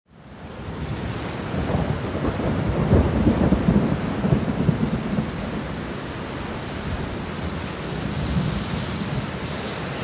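Steady rainfall with a deep rolling rumble of thunder, heaviest between about two and five seconds in. The sound fades in at the start.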